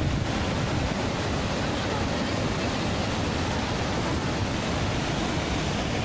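Steady rush of a waterfall and the fast rocky stream below it, an even hiss that does not change.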